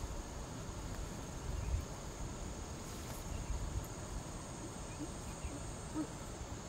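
Insects calling in a steady, high continuous tone over a low rumble, with a few faint short chirps late on.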